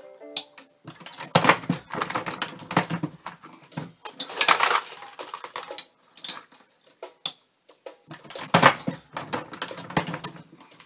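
Dillon RL 550B progressive reloading press being worked by hand while loading .308 (7.62x51) rounds: brass cases and bullets clink as they are set in, and the press clunks and clicks as the handle is cycled and the shellplate turns. The clatter comes in several bursts with short lulls between.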